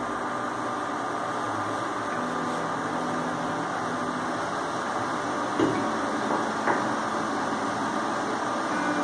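Induction cooktop heating a steel saucepan of sugared water: a steady hum with a faint hiss. Two light ticks come at about five and a half and six and a half seconds in.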